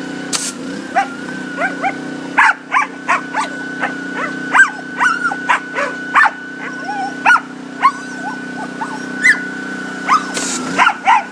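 Boykin Spaniel giving many short, excited yips and barks in quick succession, over the steady hum of a running pressure washer.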